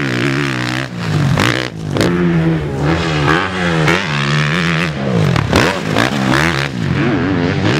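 Suzuki motocross bike's engine revving hard, the pitch climbing and dropping off again and again as the throttle opens and shuts through corners and jumps.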